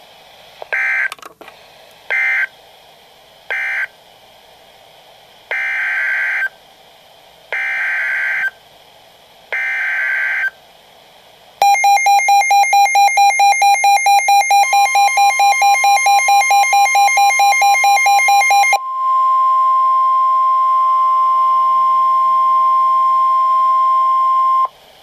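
NOAA Weather Radio EAS tones: three short bursts of SAME data screech that mark the end of one warning, then three longer header bursts that open the next. These are followed by a rapidly pulsing alert beep and the steady 1050 Hz weather radio warning alarm tone, which stops a little before the end.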